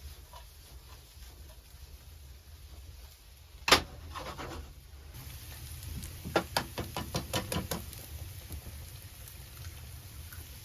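A single sharp knock, then a couple of seconds later a quick run of about ten lighter knocks, roughly six a second, over a steady low rumble.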